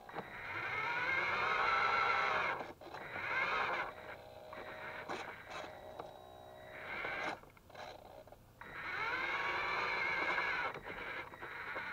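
Geared electric motors of a radio-controlled toy Linde forklift whining in several bursts, the pitch sliding up and down as it speeds up and slows. The longest bursts come at the start and near the end, with short clicks in between.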